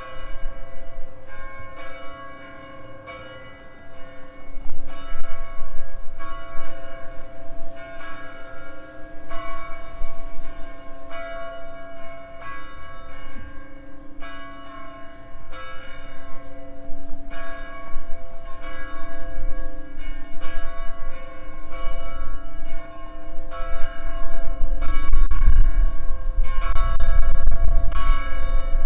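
St. Peter's Parish Church bells ringing for Easter, a stroke about every second, each tone ringing on into the next. A low rumble swells near the end.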